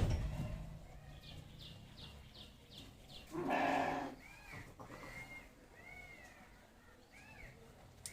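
A goat bleats once, about three and a half seconds in, the loudest sound. Just before it comes a quick run of short, faint high peeps, and a few faint arching calls follow it.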